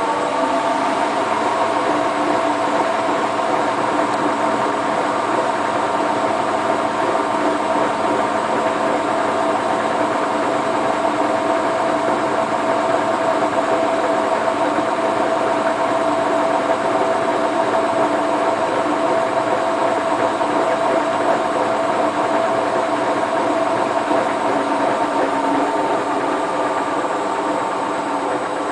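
Hotpoint Ultima WT960 washing machine spinning a load of door and bath mats: the motor whine settles at a steady high pitch just after the start and holds, with no pauses.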